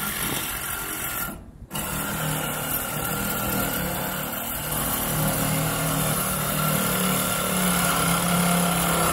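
Cordless drill running at the hub of a blower fan wheel. It stops briefly about a second and a half in, then runs steadily with a wavering hum.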